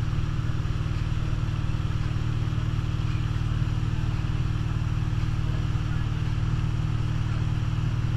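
Ski boat's inboard engine running steadily at towing speed, a low even drone, with the rushing hiss of the churning wake and spray behind the boat.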